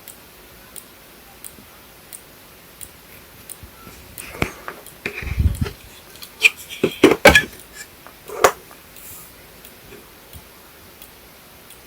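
Synology DS115 NAS clicking faintly and regularly, about once every two-thirds of a second: the clicking defect. Around the middle, a few louder irregular knocks and rustles.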